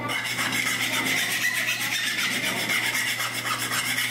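Small aluminium part being scuffed by hand with an abrasive, giving rasping rub strokes over a steady hum.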